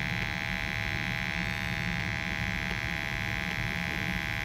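Two-stage gas furnace running in low fire: a steady motor hum with a constant high whine over it.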